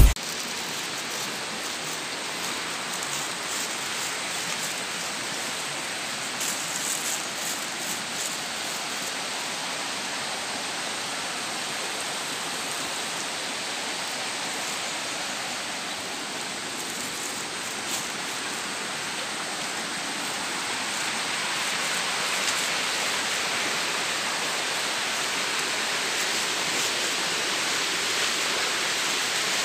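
Steady rushing water noise, growing a little louder about two-thirds of the way through, with a few faint knocks.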